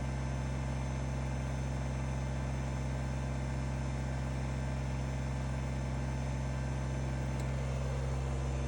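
Kubota BX24 compact tractor's three-cylinder diesel engine running steadily with an even hum.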